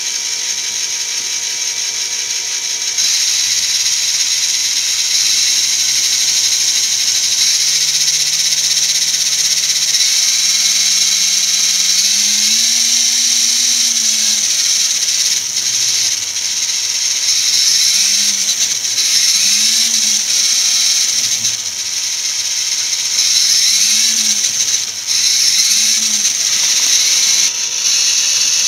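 Lego Technic electric motor driving a spinning centrifugal flyweight assembly through plastic gears and chain: a steady whirring hiss with a motor tone that climbs in several steps, drops, then rises and falls again and again as the motor speed is changed.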